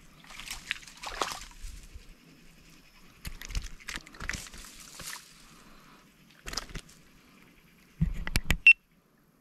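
Water sloshing and splashing in a few short bursts. Near the end come several loud sharp knocks, and then the sound cuts off abruptly.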